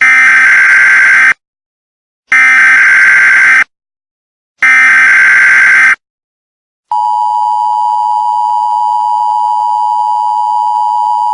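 Emergency Alert System header: three loud bursts of SAME data tones, each just over a second long and a second apart. About seven seconds in, the steady two-tone EAS attention signal starts and holds.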